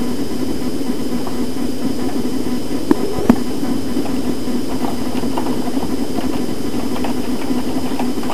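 A steady low mechanical hum with a faint, high, steady whine over it. Two sharp clicks come about three seconds in, less than half a second apart.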